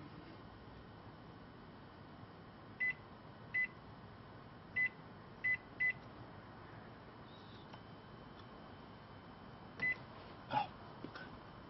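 Microwave oven control-panel beeps, short single high beeps as buttons are pressed to set the power level: five in about three seconds, then one more near the end. Just after the last beep comes a brief, louder sound that changes pitch.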